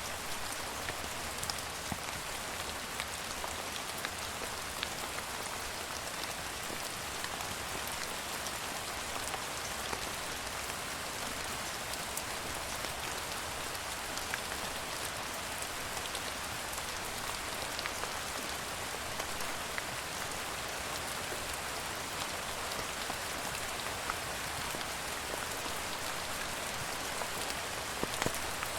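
Steady rain falling on a hard surface, an even hiss with scattered individual drop ticks.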